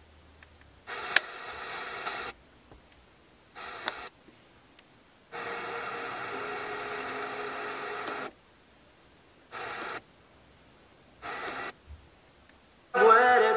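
AM car-stereo tuner being tuned down the medium-wave band: muted gaps broken by short snatches of weak, noisy stations, each switched on and off abruptly as the tuner moves between channels.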